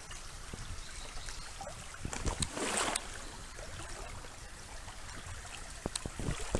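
Shallow creek water trickling and running over rocks, with a brief louder swish about two and a half seconds in and a few faint knocks.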